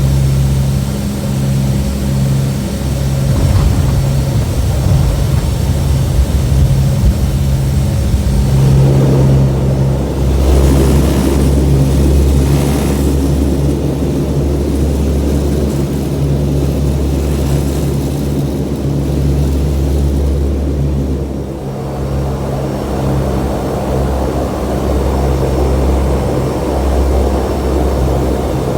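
C-130 Hercules' four turboprop engines running with a steady, deep propeller drone. A louder rush of noise swells between about nine and thirteen seconds in, then eases back to the drone.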